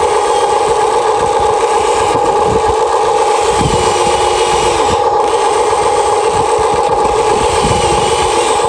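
A Huina 1593 RC excavator's electric motors and gearboxes whining at a steady pitch, with irregular scraping and clatter underneath.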